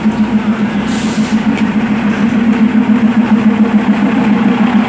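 Diesel commuter railcar's engine running beside the platform: a steady, loud droning hum with a fast, even pulse.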